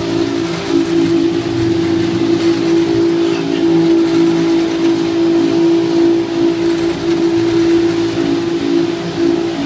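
Fishing boat's engine running steadily under way, a loud, steady drone heard from inside the wheelhouse.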